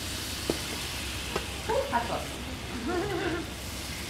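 Butter sizzling steadily in a hot skillet, with a couple of light clicks.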